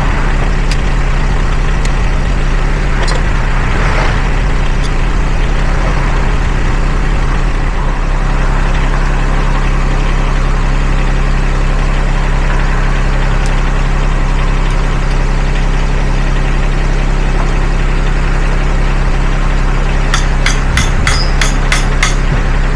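Engine idling steadily. Near the end, a quick run of about eight sharp metallic taps.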